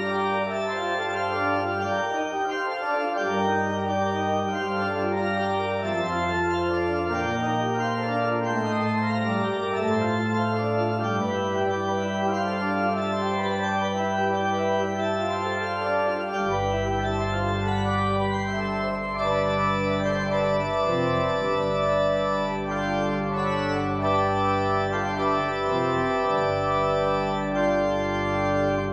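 Organ music: sustained organ chords changing every second or two, with a deep pedal bass line joining about halfway through.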